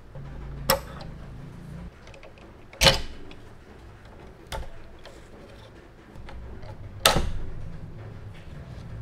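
Sharp clicks and knocks of small parts and a small screwdriver against a scale-model truck cab as a side panel is fitted: four distinct hits, the loudest about three seconds in. A low hum runs beneath for the first two seconds and again near the end.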